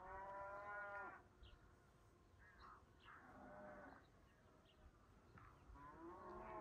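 Cattle lowing faintly, three drawn-out calls of about a second or more each, with short bird chirps in between.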